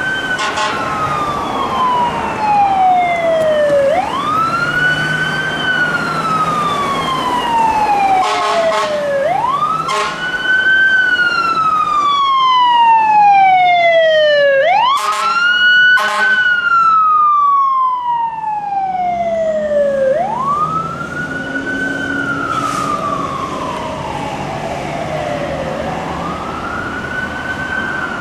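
Fire truck's mechanical Q siren wailing: each cycle spins up quickly to a high pitch, then winds down slowly over about four seconds, repeating about every five and a half seconds. Air horn blasts cut in at about 8 seconds and again around 15 seconds, over the rumble of the truck's engine.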